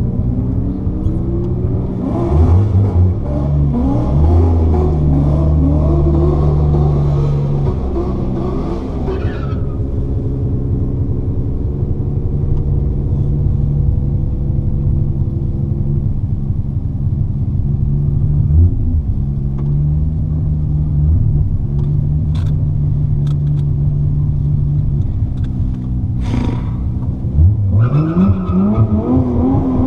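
Single-turbo Nissan RB26 straight-six, heard from inside the R32 Skyline GT-R, revving hard under a hiss of spinning tyres from about two seconds in for some seven seconds, typical of a burnout. It then settles to a steady idle, and near the end the revs climb again.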